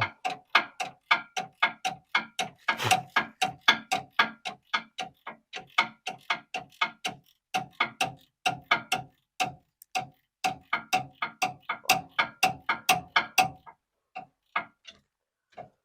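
Hand ratchet clicking steadily, about three clicks a second, as it backs a lock nut off the starter's cable terminal. The clicks slow and stop about fourteen seconds in.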